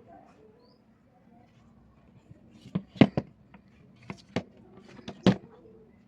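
About six short, sharp knocks and clicks, starting about two and a half seconds in, the loudest around three seconds and just past five seconds.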